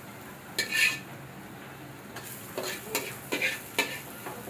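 Metal spatula scraping fried onion slices across a metal karahi to scoop them out of the pan. There is one scrape about half a second in, then a run of quick scrapes in the second half.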